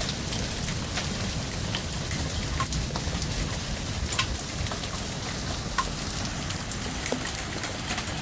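Steady rain falling, with scattered sharp ticks of single drops landing close by.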